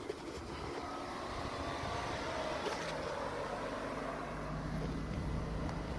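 Car engine running, a steady low hum that swells and grows stronger about four seconds in.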